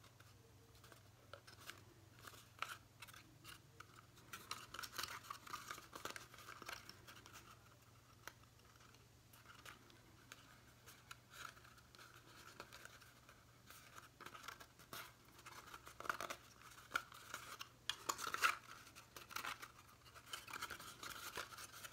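Cardstock paper being handled and pressed by hand: faint, irregular scratchy rustles and small clicks as glued paper tabs are pinched together along the seam of a folded paper box.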